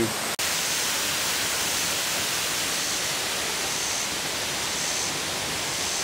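Steady rushing hiss of a waterfall, even and without any rhythm, broken only by a momentary dropout about half a second in.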